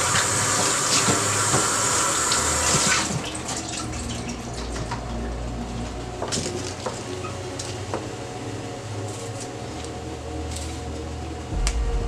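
Kitchen tap running into a stainless-steel sink while herbs are rinsed under the stream. The water shuts off about three seconds in, and light clicks and rustles of handling follow.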